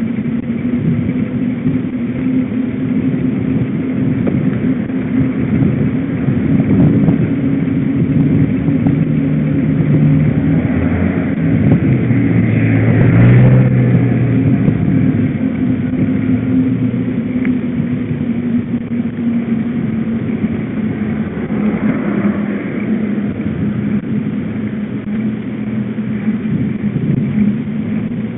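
Steady rushing noise of riding on a road bike-mounted camera: wind over the microphone and tyres rolling on asphalt, growing loudest about halfway through.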